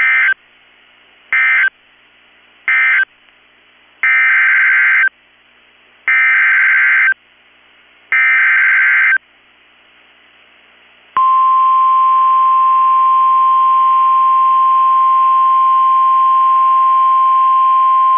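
NOAA Weather Radio Emergency Alert System (SAME) data bursts: three short end-of-message bursts, then three longer header bursts about a second each and two seconds apart, announcing the next warning. About eleven seconds in, the steady single-pitch 1050 Hz weather-radio warning alarm tone starts and holds.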